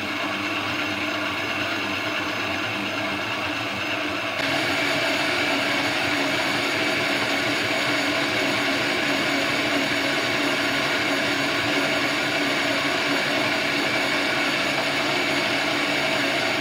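Electric stand mixer's motor running steadily as its dough hook kneads stiff roti atta dough, a hum with many steady tones. It gets louder about four seconds in and cuts off suddenly at the end as the mixer is switched off.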